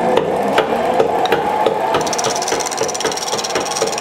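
Treadle lathe spinning an oak spindle, its drive knocking evenly about three times a second. A turning tool cuts into the wood, with a scraping hiss that comes in about halfway through.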